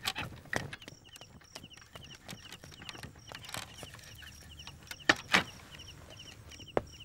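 Night insects chirping steadily in short pairs, a few per second, over a thin high-pitched trill, with a few sharp knocks about five seconds in.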